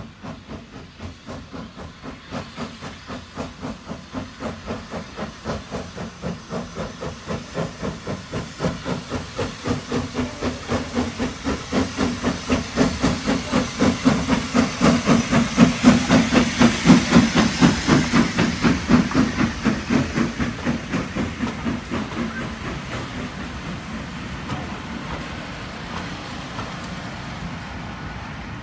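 Hunslet Austerity 0-6-0 saddle-tank steam locomotive working a passenger train at a slow plod, its chuffs coming about two to three a second with steam hiss, growing louder to a peak as it passes about halfway through. The chuffs then fade and the coaches roll by with a steady rumble of wheels on rail.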